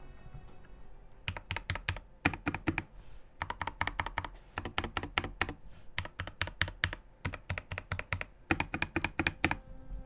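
Keychron K10 Pro full-size mechanical keyboard typed on close to the microphone: clacky keystrokes in quick runs with short pauses between them, starting about a second in.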